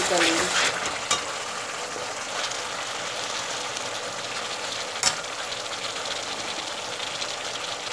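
Onion, ginger and garlic masala paste sizzling steadily in oil in a pan, being fried down until the oil separates. A metal spatula clicks briefly against the pan about a second in and again about five seconds in.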